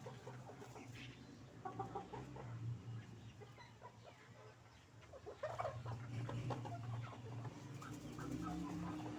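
Hens clucking in short bursts of calls, busiest about two seconds in and again around six seconds in, over a steady low hum.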